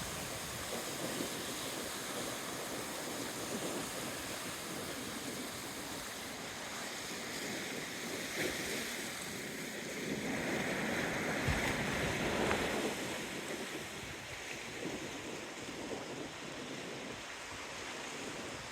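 Strong wind blowing over the microphone, with waves washing against the shore of the bay. The noise swells for a few seconds about ten seconds in.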